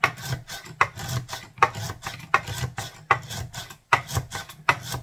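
A metal hand mixer plunged up and down in brown gravy mix and water in a glass measuring cup, blending the gravy. The strokes repeat evenly, a little faster than one a second.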